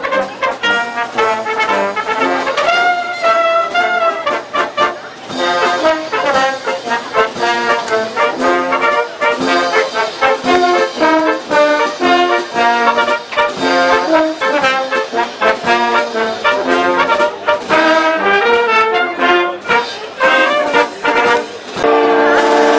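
A small brass band of tuba and trumpets playing a lively, rhythmic tune. Near the end the tune gives way to one long, steady, held tone.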